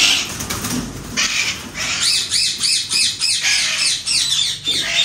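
Green parrot squawking repeatedly in short harsh calls, several a second, as a hand reaches into its cage; a loud noisy burst opens the sound.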